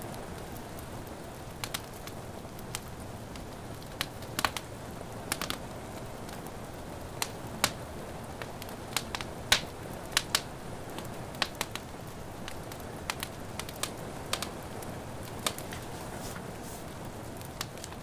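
Wood fire crackling, with irregular sharp pops scattered through, most of them in the middle, over a steady soft hiss of indoor rain.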